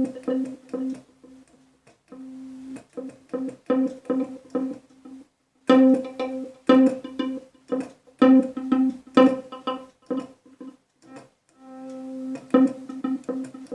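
Korg Pa50SD arranger keyboard playing a plucked-string, guitar-like voice, triggered over MIDI from a controller keyboard. The notes come in short phrases, mostly repeating around one pitch, with brief pauses between the phrases.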